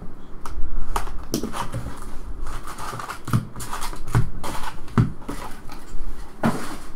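Trading-card hobby box being opened by hand and its foil packs pulled out and set down in stacks on the table: cardboard and foil rustling, with about eight sharp knocks as packs and box hit the table.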